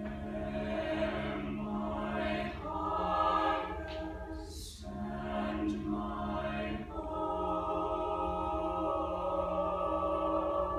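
Mixed-voice high school jazz choir singing a cappella in close harmony: sustained chords in phrases, with short breaks about 2.5 and 5 seconds in and a sharp sung 's' hiss just before the second, then a long held chord through the end.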